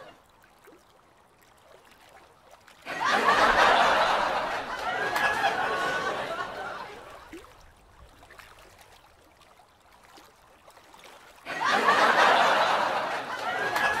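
People laughing and chuckling in two bursts: one starting about three seconds in and fading after about four seconds, and another starting near the end.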